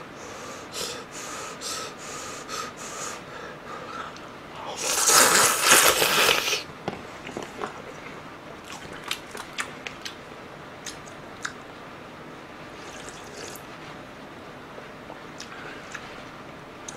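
A person eating Nagasaki champon noodles close to the microphone: a few short slurps, then one long, loud slurp of noodles about five seconds in. Chewing with small wet mouth clicks follows.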